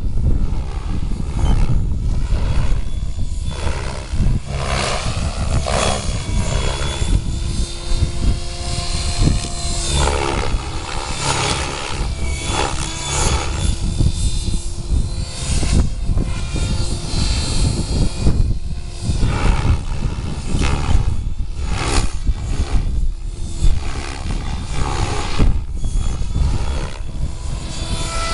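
Gaui X7 electric RC helicopter in flight: the motor and rotor whine rises and falls in pitch as it manoeuvres. Heavy wind buffets the microphone.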